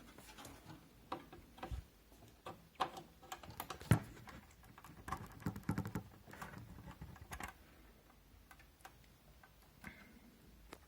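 Irregular light clicks and taps from hands working on a computer case and its parts, busiest in the middle, with one sharper knock about four seconds in.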